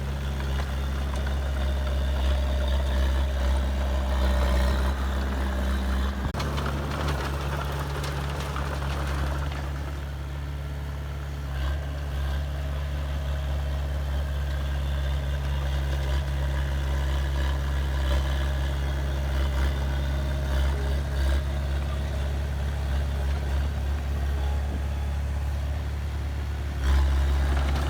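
Heavy diesel engine of earthmoving machinery running steadily, its engine note changing about six seconds in and briefly getting louder near the end.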